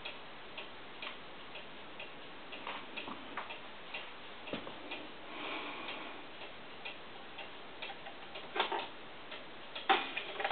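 Large hunter cuckoo clock ticking, about two ticks a second, with a few louder clacks near the end.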